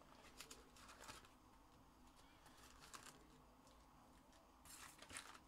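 Faint rustling and light scraping of cardboard and foil: a trading-card hobby box being opened and its wrapped packs handled, with scattered soft clicks and a short cluster of rustles near the end.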